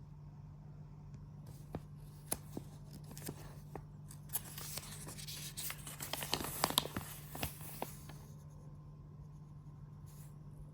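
Hands handling packaging and grooming-kit parts: a string of sharp clicks and rustling that builds to its densest a little past the middle, then thins out. A steady low hum runs underneath.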